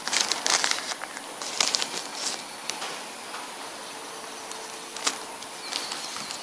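Rustling and crackling handling noise close to the microphone, with scattered sharp clicks, busiest in the first two or three seconds and then settling to a low hiss.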